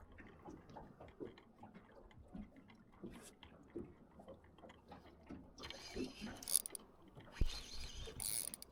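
Fishing reel being wound in fast, a steady run of small mechanical clicks, with a fish on the line. Two brief hissing bursts come near the end.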